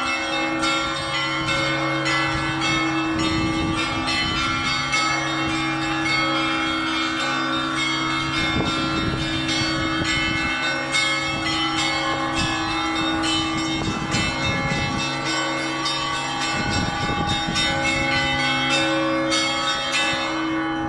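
Russian Orthodox church bells pealing: smaller bells struck in quick, dense succession over the steady hum of larger bells. The small-bell strikes stop near the end, leaving the big bells humming.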